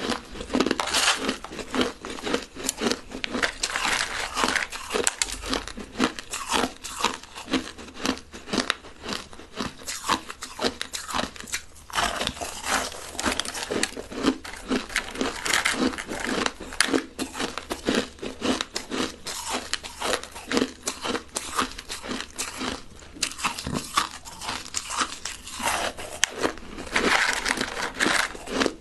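Close-miked crunching of crushed ice being bitten and chewed, a dense irregular run of sharp cracks and crackles, a few seconds per mouthful.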